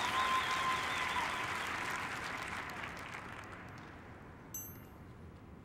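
Large crowd applauding, with a few whistles in the first second, dying away steadily over a few seconds. A short, high electronic ping sounds near the end.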